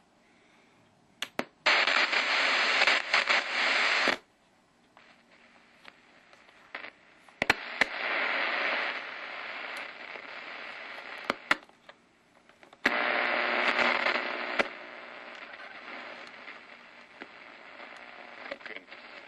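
Info Mate shortwave radio being tuned across the band: three loud bursts of static hiss that cut in and out abruptly, with clicks between them and a fainter hiss near the end.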